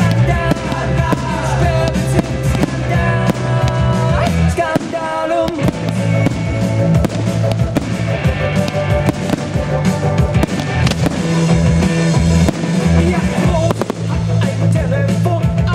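Music with a steady bass line and a melody, mixed with fireworks shells bursting and crackling.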